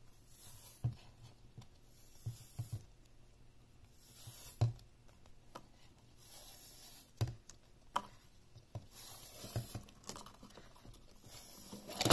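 A paper seal strip being peeled and torn off the base of a clear plastic display case, in short rasping pulls, with scattered clicks and taps of the hard plastic being handled and a louder knock near the end.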